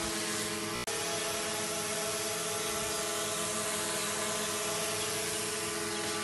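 DJI Mavic Pro quadcopter's propellers whining steadily in flight, a buzzing hum made of several steady tones over hiss, with a brief break about a second in.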